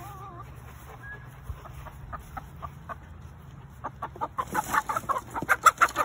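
Flock of chickens clucking, scattered short clucks at first, then a busy, louder run of clucking from about four seconds in.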